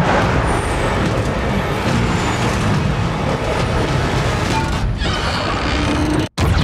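Action-film sound mix: a heavy truck's engine running hard, with vehicle noise, over score music. Near the end the whole mix cuts to silence for a split second.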